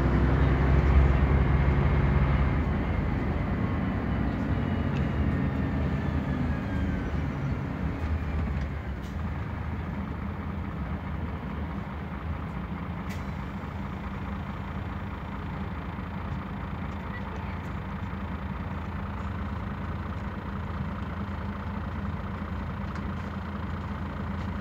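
Scania DC9 five-cylinder diesel bus engine and drivetrain heard from the passenger cabin. It runs loudest at first, with a whine that falls in pitch over the first eight seconds, then settles to a quieter, steady running note.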